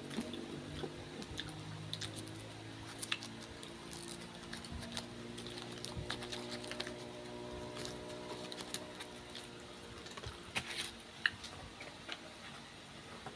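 Light, irregular crunches and clicks, as of crisp crackers being eaten and handled, over a faint steady hum.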